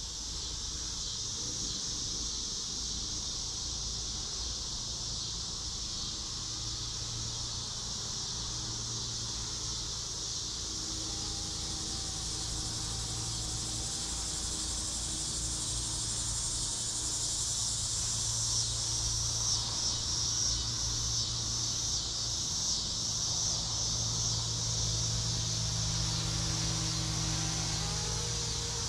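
A steady high chirring insect chorus, crickets or similar, runs without a break, with a faint low steady hum underneath.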